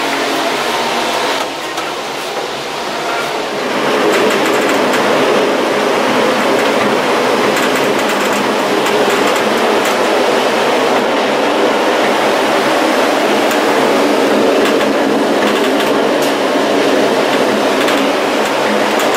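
Gateway Arch tram capsule in motion, heard from inside the capsule: a steady rumbling rattle that grows louder about four seconds in, with scattered light clicks.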